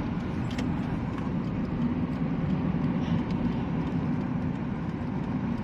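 Car driving on a wet road, heard from inside the cabin: steady tyre and engine noise with a low, even hum.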